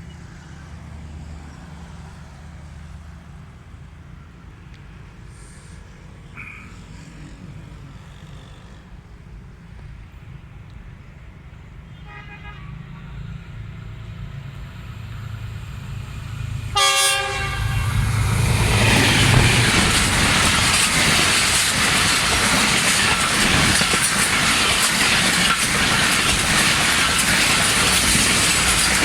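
GEU-20 (GE U20C) diesel-electric locomotive approaching with a low engine hum, giving a faint short horn toot about twelve seconds in and a short loud horn blast about five seconds later. The train then passes at speed with a loud, steady rush of wheel and wind noise.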